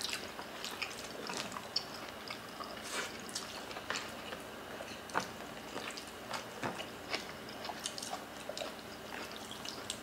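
Close-up eating sounds: two people chewing rice and oxtail stew, with many small, irregular mouth clicks and smacks.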